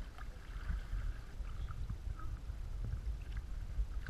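Outdoor ambience from an inflatable sea canoe on calm water: a low, uneven rumble with faint, scattered short chirps higher up.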